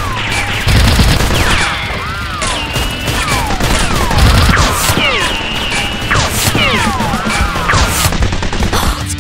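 A rapid volley of gunfire sound effects, dense shots throughout, with a falling whistle about once a second like bullets whizzing past.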